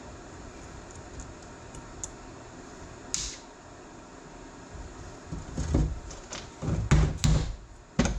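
Metal tools and steel parts being handled on a workbench during disassembly: a sharp metallic clink about three seconds in, then a run of heavier knocks and clunks in the last three seconds, over a steady background noise.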